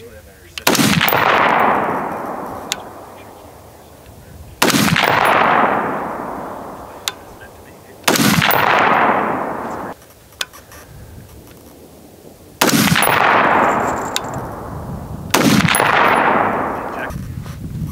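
Mk12-pattern 5.56 rifle fired unsuppressed with XM193 ammunition: five single shots a few seconds apart, each a sharp crack followed by an echo that dies away over a couple of seconds.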